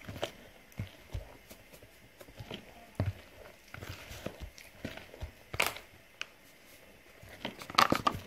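Hand squeezing and mixing a thick mashed-plantain batter in a bowl: irregular soft squelches and knocks, with a louder cluster near the end.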